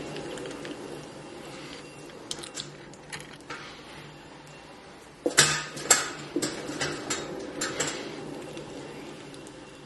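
Wet clay squelching and rubbing under the hands as it is centred on a spinning pottery wheel, over the wheel's low steady hum. Scattered sharp wet slaps and clicks, the loudest run about five to six seconds in.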